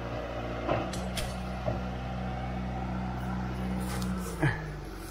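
John Deere log skidder's diesel engine running, its note rising slightly just under a second in and dropping off about four and a half seconds in, with a few sharp metal knocks.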